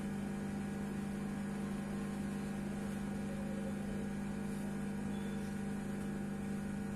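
Steady electrical hum from the microphone's sound system, a low hum holding several fixed tones without change.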